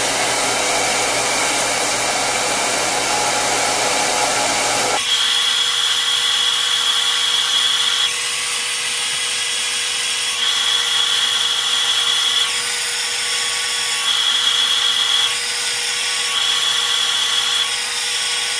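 Handheld hair dryer blowing steadily, a loud rushing of air. About five seconds in the sound changes, and from then on a high whine comes and goes every second or two.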